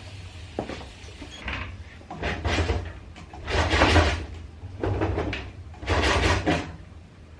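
Locked storage cupboards being tugged at, their doors rattling against the locks in four short bursts, with a few small knocks before them.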